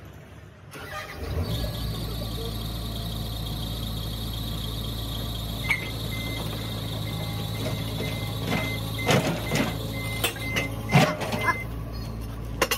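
Komatsu 130 excavator's diesel engine comes up to a steady run about a second in. Partway through, a run of short, evenly spaced beeps starts, and a few sharp metal clanks follow near the end.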